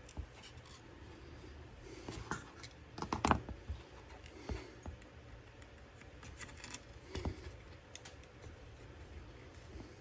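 Scattered light clicks, taps and scratching of hands working on a model airplane, with a quick cluster of louder clicks a little over three seconds in.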